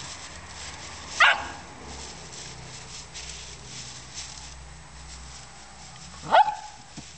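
Goldendoodle puppy barking twice: two short, high yaps, one about a second in and one near the end.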